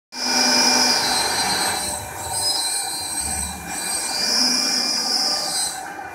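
Large-format CNC router's spindle whining at high pitch as it mills plywood sheets, the whine shifting up and down and the level swelling and dipping as the cutter moves through the wood, over a steady mechanical rush.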